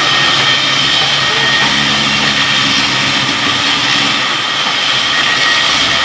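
Sawmill band saw running and ripping a long mango-wood log lengthwise: steady loud machine noise with a high whine held over it.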